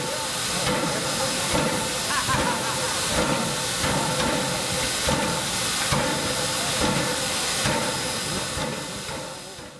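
Steam locomotive Nickel Plate Road 765, a 2-8-4 Berkshire, hissing steam from its open cylinder cocks, a steady loud hiss with a faint regular beat about once a second underneath.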